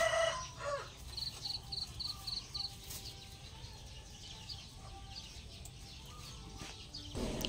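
Backyard chickens clucking, with a run of five quick high chirps about a second in.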